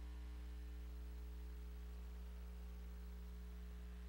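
Steady low electrical mains hum with a light hiss, unchanging and with no music.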